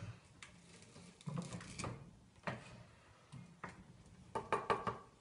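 Caipirinha machine clattering as it works: a string of separate knocks and clunks, with a busier, briefly ringing clatter near the end.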